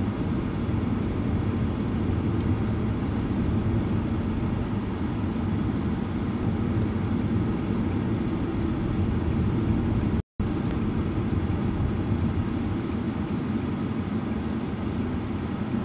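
Steady road and engine noise of a moving car, heard from inside the cabin, mostly a low rumble. The sound cuts out completely for a moment about ten seconds in.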